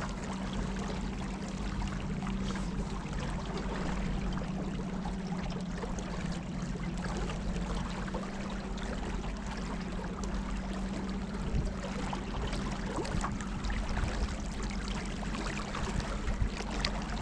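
A motorboat's engine running at a steady low hum, with water rushing and splashing along the hull as the boat moves.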